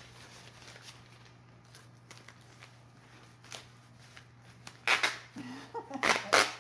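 Duct tape being pulled off the roll in loud, sharp rips, twice, about five and six seconds in, after a few seconds of faint rustling and handling of plastic coveralls and gloves.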